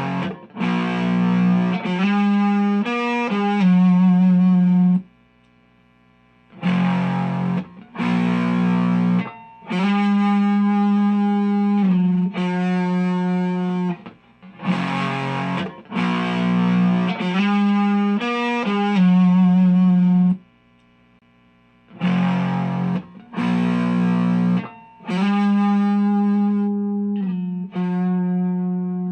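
Overdriven electric guitar: a Fender Stratocaster's neck single-coil pickup through the Xotic SL Drive pedal into an Orange Micro Dark amp, playing a riff of distorted chords and held notes. The phrase is played, stops for a second or two about 5 s in, and comes around again, with a similar pause about 20 s in.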